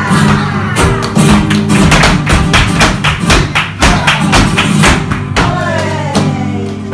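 Live flamenco music: rapid, sharp stamping footwork from a dancer's shoes on a wooden stage over flamenco guitar, with a singing voice gliding down near the end.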